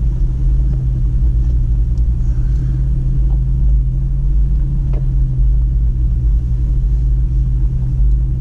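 Pickup truck's engine running steadily at low trail speed, with a constant low drone and tyre rumble on the gravel, heard from inside the cab. A faint click about five seconds in.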